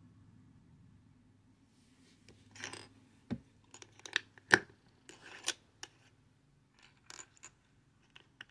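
Plastic Lego bricks being handled and pressed together on a wooden tabletop: scattered clicks and short scrapes, the sharpest snap about halfway through. A faint low hum sits under the first few seconds.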